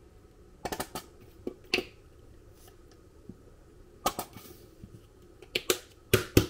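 Kitchen utensils knocking on a chopping board or plate during burger preparation: about eight sharp, irregular knocks and clicks, bunched in the first two seconds and again near the end, with a quiet stretch between.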